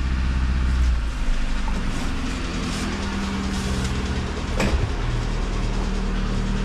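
LADA Priora's worn four-cylinder petrol engine running with a heavy knock, most likely a piston knocking in a worn engine that needs a rebuild. A deep hum drops away about a second in, and one sharp knock stands out a little past the middle.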